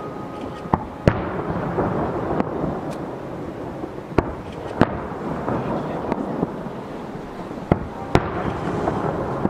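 Aerial firework shells bursting in sharp bangs, three pairs of two spaced a few seconds apart, over a continuous rumble of further blasts and their echoes.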